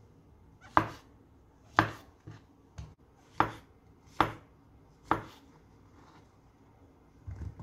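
Knife slicing button mushrooms on a wooden cutting board: five sharp knocks of the blade on the board, about a second apart, with a couple of lighter taps between. Soft low thuds near the end.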